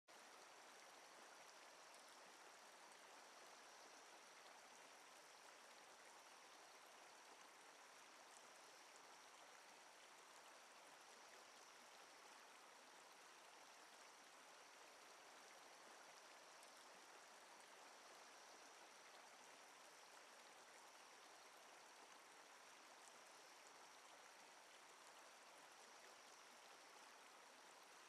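Near silence: a faint, steady hiss with a thin high tone running through it.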